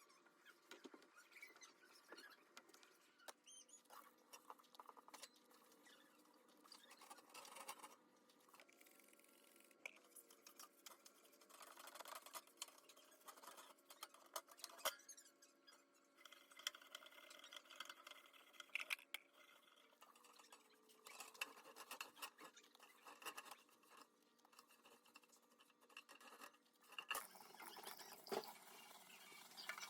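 Faint, irregular scratching and rubbing with scattered light clicks and knocks: small hand-cleaning and handling noises.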